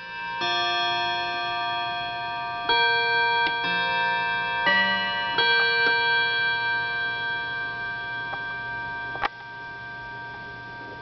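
Telechron tambour chime clock from about 1931 playing its chime: about half a dozen struck notes at uneven spacing, each ringing on and overlapping the next. A sharp click about nine seconds in cuts the ringing short.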